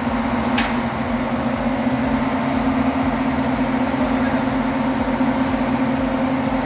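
Standby generator engine running steadily with a deep, even hum, and one sharp click about half a second in.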